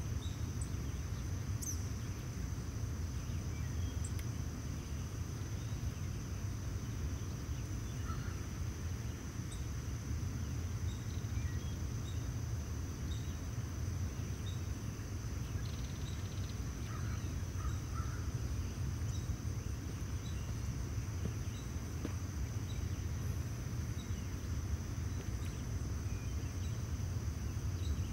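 Outdoor summer ambience: a steady high insect drone over a low, even rumble, with a few faint scattered chirps.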